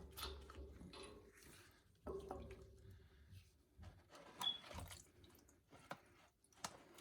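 Faint clicks and small knocks of an oil furnace's fuel oil filter canister being unscrewed and opened by hand, with fuel oil dripping from it.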